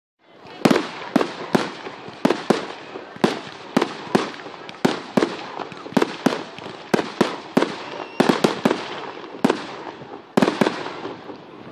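Fireworks firing in rapid succession from the ground: a quick run of sharp bangs, about two a second, over a continuous hiss.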